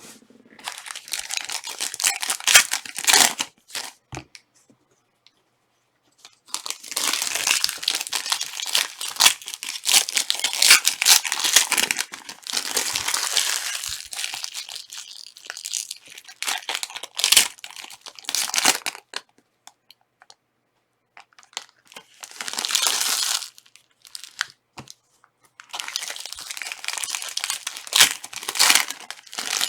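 Plastic trading-card pack wrappers crinkling and tearing as packs are ripped open and handled. It comes in several bouts of a few seconds each, with short silent gaps between them.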